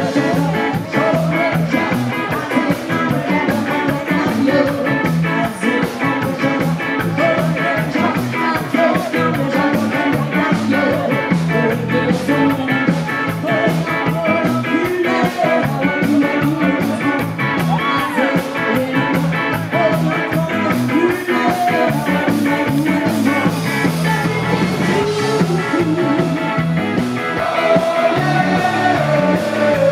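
Live ska band playing: electric guitar and bass over a fast, steady beat, with singing over the top.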